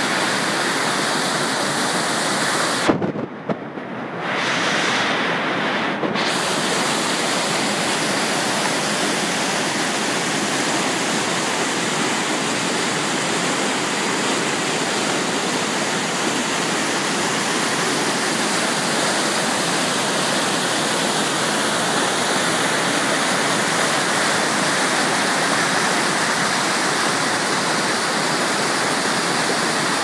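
River water rushing over rocks in whitewater rapids below a waterfall: a steady, full rushing noise. About three seconds in there is a click, and the sound drops and goes dull for a few seconds before it returns.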